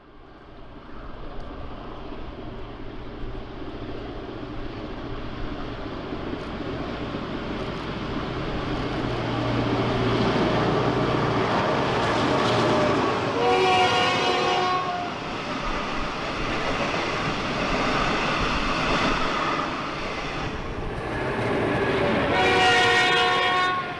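Diesel locomotives approaching and passing at speed, their engines running under the rumble of wheels on the rails. A multi-note train horn sounds twice, about halfway through and again near the end as the locomotives pass.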